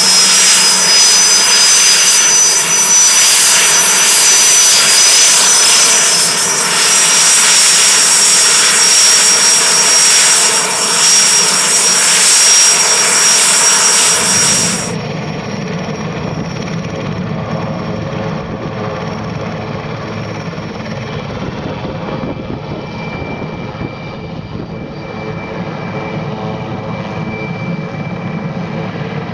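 AS-330 Puma helicopter running on the ground, rotors turning, with a loud, steady high-pitched turbine whine from its twin Turbomeca Turmo turboshafts over the rotor noise. About halfway through the sound abruptly turns duller and deeper, with the whine much reduced.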